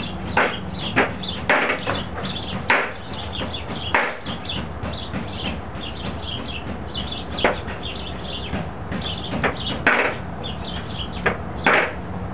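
A large knife chopping squirrel meat on a thick round wooden chopping block. There are about eight sharp chops at an irregular pace, with a pause of a few seconds in the middle.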